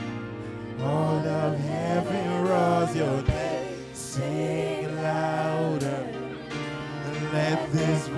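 Live spontaneous worship music: a man sings into a microphone over sustained low backing notes, with a few sharp percussion hits.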